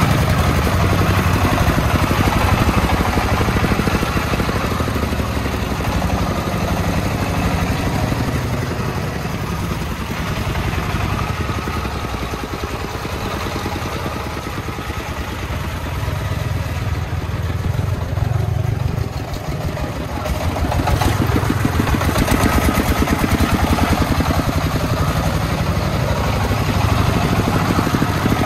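Diesel engine of a homemade công nông truck running with a rapid, even firing beat, easing off through the middle and coming back up about twenty seconds in.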